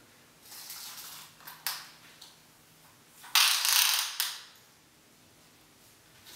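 Retractable tape measure's cloth tape being pulled out of its small round case: a short pull about half a second in, two light clicks, then a longer, louder pull a little after three seconds in.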